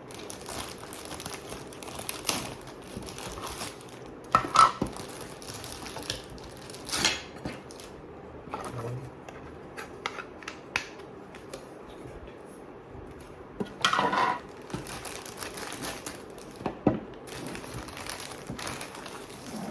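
Figure packaging being handled and pulled open, crinkling and rustling, with irregular sharper crackles several times.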